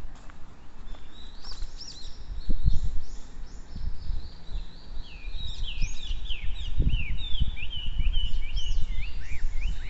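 Small songbirds chirping and singing in a rapid series of short, high sweeping notes, busiest in the second half. Low rumbling thuds come through about two and a half and seven seconds in.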